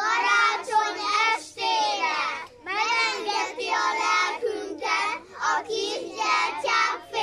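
A group of young children singing a song together, in short phrases with brief breaks between them.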